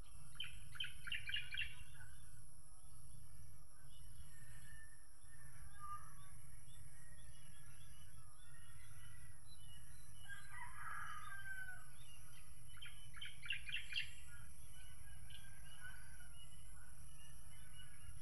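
Birds calling over a farm field: a quick run of chattering notes near the start and again about thirteen seconds in, and a rooster crowing about ten seconds in. A steady low rumble of wind on the microphone runs underneath.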